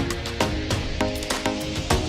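Background music with a steady beat: regular drum hits about three times a second under plucked-string notes.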